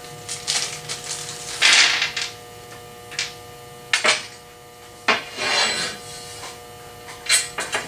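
Plastic bag of small fastening hardware rustling in several short bursts as it is opened and handled, the loudest about two seconds in, with a few sharp clicks of the parts inside.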